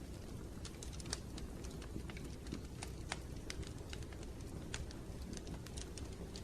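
Wood fire crackling in a fireplace: irregular sharp snaps and pops over a steady low rush of the flames.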